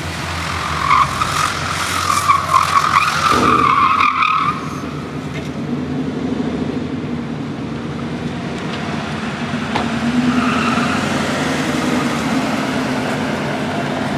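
Subaru WRX tyres squealing as the car is pushed hard through autocross cone turns: a strong, steady squeal for about three and a half seconds near the start and a shorter, weaker one about ten seconds in. The engine runs under load throughout.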